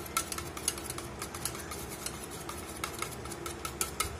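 Metal wire whisk beating a thick batter in a stainless-steel bowl: quick, irregular clinks of the wires against the steel, several a second, over a low steady hum.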